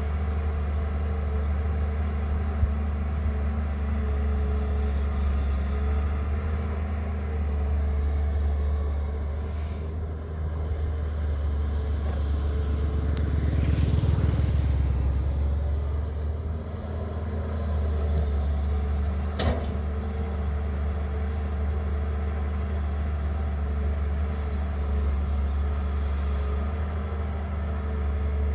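Caterpillar 320D hydraulic excavator's diesel engine running steadily while it digs. It swells louder about halfway through as the loaded arm swings over and dumps a bucket of soil. A sharp click comes about two-thirds of the way through.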